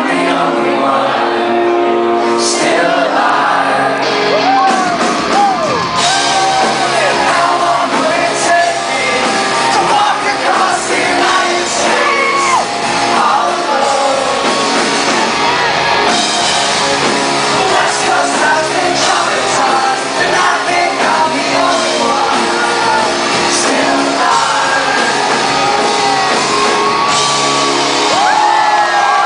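Rock band playing live in a large hall, with singing and shouts over the music.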